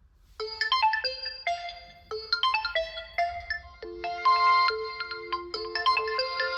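Realme C55 smartphone ringtone playing: a melody of short, quick pitched notes that starts about half a second in.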